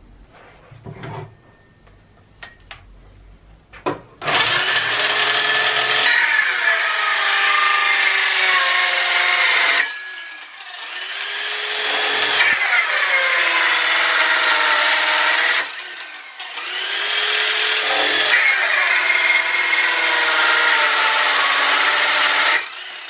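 Electric drill driving a 1950s Woden Quiksaw circular-saw attachment through a wooden board. After a few handling clicks it starts about four seconds in and runs with a loud whine and sawing noise. It slows twice, its pitch dropping and climbing back, and stops abruptly near the end.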